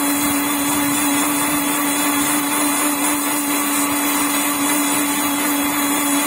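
Mixer grinder motor running steadily at full speed, grinding coconut and fennel seeds with water into a wet paste, then cutting off abruptly at the end.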